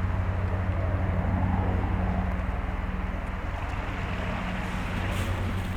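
Steady low engine drone, even in pitch, with a faint brief crackle about five seconds in.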